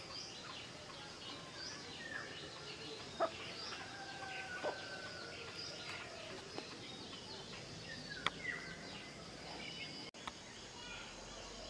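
Outdoor ambience of many birds chirping and calling over a steady background hiss, with a few sharp clicks.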